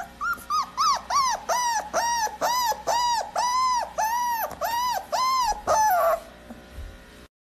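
A pit bull-type dog whining in a quick run of short, high, rising-and-falling whines, about three a second, stopping about six seconds in.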